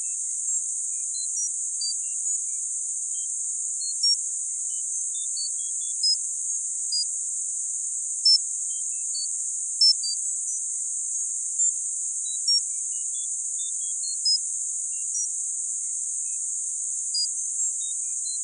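Synthesized tinnitus sound-therapy signal: a steady high-pitched band of hiss with short beeps at random pitches scattered over it, about two or three a second, some louder than others.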